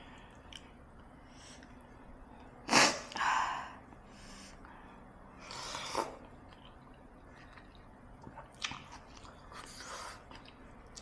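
A person eating chicken soup: chewing and mouth noises, with short, louder breathy bursts about three seconds in and again around six seconds.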